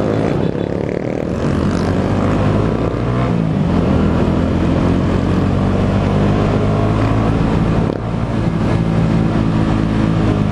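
Motorcycle engines running loudly, a steady low drone that holds an even note through most of the stretch.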